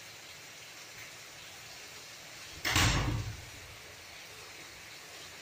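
A single sharp knock, a little past halfway, that dies away within about half a second, over faint steady room noise.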